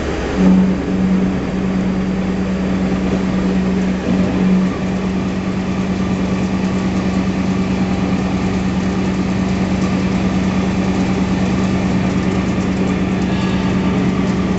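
Csepel horizontal machining center running, with a steady low machine hum that comes in about half a second in, wavers for a few seconds and then holds steady.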